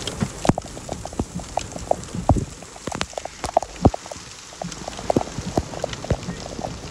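Heavy rain striking a vehicle: sharp, irregular knocks, several a second, over a steady hiss of rain.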